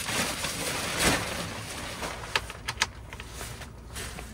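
Rustling of a fabric shower curtain being handled and hung, with a few short, sharp clicks in the second half as its top edge is clipped to the ceiling.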